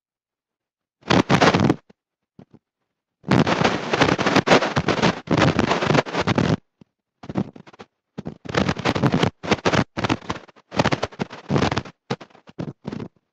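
Badly distorted sermon audio: harsh, clipped noise comes in phrase-length bursts of half a second to three seconds and cuts off abruptly into dead silence between them, so no words can be made out.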